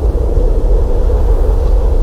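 Blizzard wind howling: a loud, steady rush with a deep rumble underneath and a hollow howl held at one pitch.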